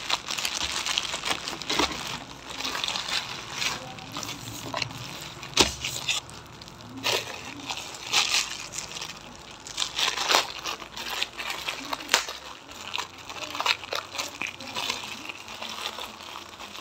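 A plastic courier bag and the clear plastic wrap around rolls of garbage bags being pulled open and handled, crinkling and rustling in irregular bursts of sharp crackles.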